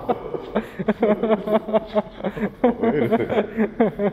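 People talking: speech only, with no other clear sound.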